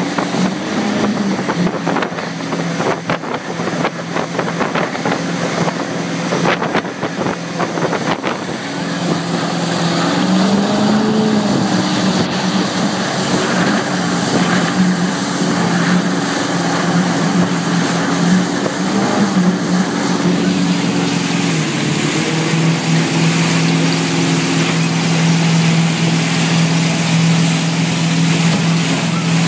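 Motorboat engine running at speed while towing an inflatable ride, its drone shifting in pitch a couple of times as the throttle changes. Water spray hisses and slaps throughout, with sharp splashes in the first several seconds, and wind buffets the microphone.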